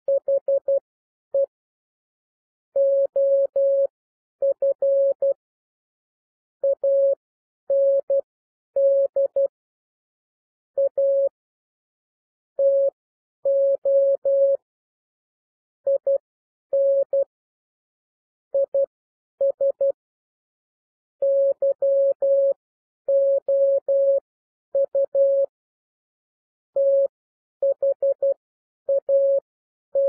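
Computer-generated Morse code at 12 words per minute: a single steady mid-pitched tone keyed on and off in short dots and longer dashes, with silent gaps between letters and words. It spells out common English words: the, of, and, a, to, in, is, you, that.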